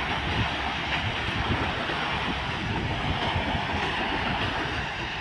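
Wind blowing across the microphone, a steady rough rumble, over the wash of small waves breaking on a sandy beach.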